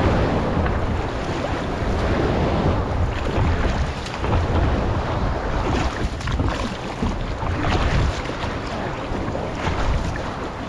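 Wind buffeting the microphone over choppy sea waves, with a wooden paddle splashing into the water beside a small dugout canoe now and then.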